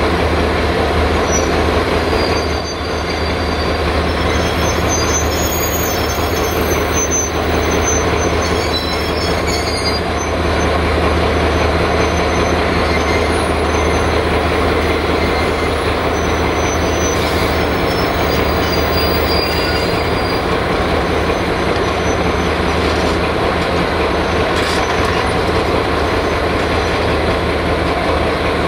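Freight train of hopper wagons rolling past, wheels clattering on the rails with brief high-pitched wheel squeals now and then over a steady low drone.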